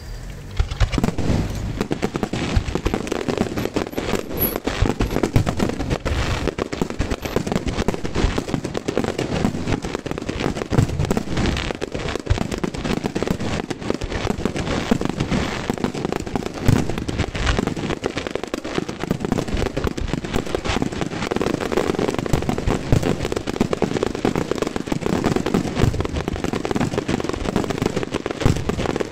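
Aerial fireworks display going off in a dense, rapid barrage of bangs and crackles, starting just after the beginning and carrying on without a break.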